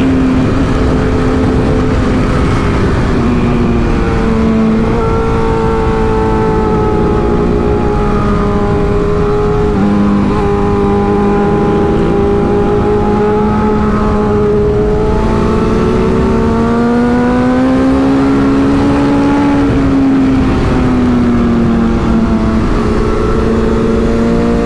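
Sport bike engine heard onboard while riding, its note rising and falling with the throttle and stepping in pitch at gear changes, over a steady rush of wind noise.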